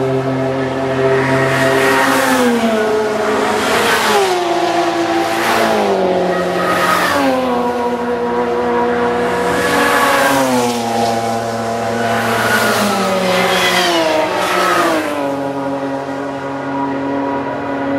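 GT race cars passing one after another at high speed, each engine note dropping in pitch as it goes by, with the next car's engine already coming in so there is hardly a gap.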